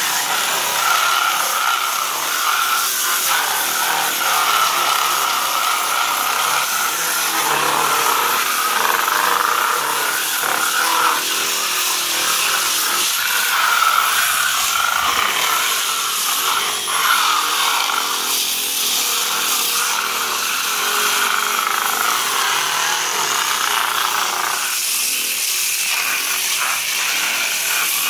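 Corded handheld electric disc sander running steadily, its pad grinding against peeling pool plaster to sand it down before patching.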